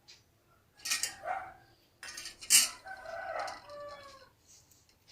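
Clinks and knocks of a small oil lamp and its chimney being set in place beside a kitchen stove, the loudest clink about halfway through.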